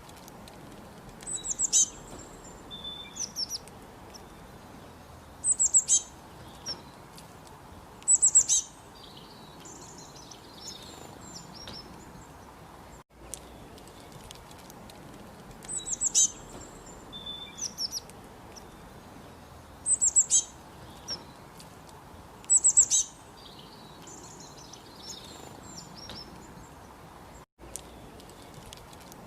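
Songbirds chirping: groups of short, high chirps that fall in pitch, with an occasional brief whistle, over a steady faint hiss. The same run of calls repeats about every 14 seconds, each repeat starting after a momentary dropout, as a looped recording does.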